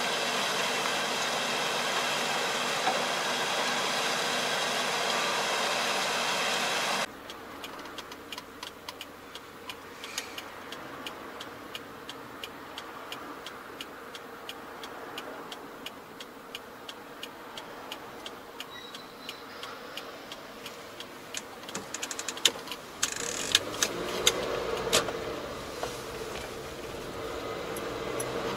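A steady engine drone for about seven seconds, cutting off suddenly. Then the quieter sound of a car driving, heard from inside the cabin, with frequent small clicks and a louder stretch a few seconds before the end.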